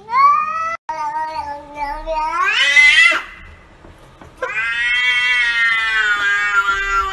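Domestic cats meowing in long, drawn-out calls. A short call breaks off abruptly under a second in. The next rises in pitch at its end. After a pause of about a second comes a long, steady yowl that dips slightly at the end.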